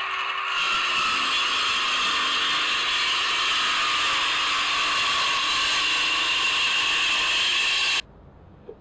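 A woodworking tool working pine: a steady, hissing noise that lasts about eight seconds and then cuts off abruptly.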